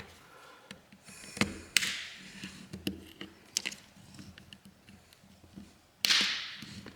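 Phone's plastic back cover being pried off along its edge with a pry tool: scattered small clicks and snaps as the clips let go, with a short scraping hiss about six seconds in as the glued cover is worked loose.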